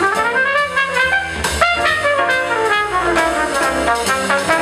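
Jazz combo playing, a trumpet leading with a quick line of notes over piano, double bass and drums.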